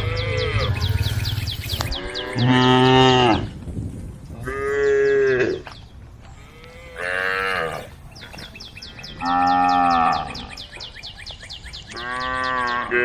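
Cows mooing: five separate moos, each about a second long, coming every two seconds or so, some lower and some higher in pitch.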